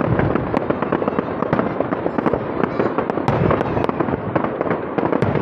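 Fireworks display: a continuous rapid run of bangs and crackles from shells bursting overhead.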